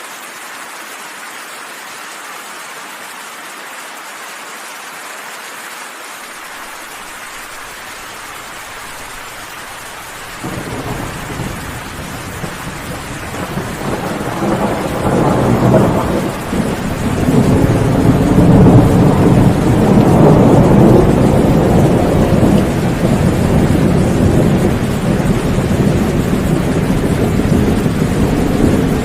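Steady rain, then a long rolling thunderclap that breaks in about ten seconds in, swells to its loudest a few seconds later and rumbles on under the rain.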